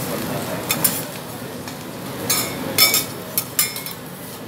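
Tableware clinking at a restaurant table: a couple of sharp clinks of dishes or utensils about a second in, then a quick cluster of clinks in the middle, over a steady background hiss.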